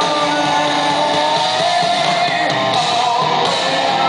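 Rock band playing live at full volume with electric guitars, heard from within the audience of a large hall.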